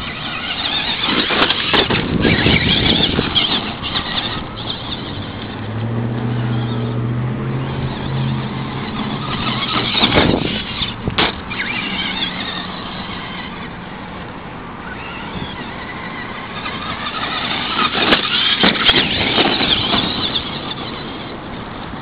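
Traxxas Monster Mutt RC monster truck's brushed electric motor whining, rising and falling in pitch as the truck speeds up and slows, over a steady noisy wash. A couple of sharp knocks come about ten and eleven seconds in.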